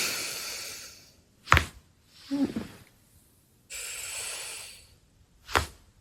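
Two sharp cracks of a person's back being manually adjusted, about four seconds apart. Each crack comes after a long breath, and there is a short low groan just after the first.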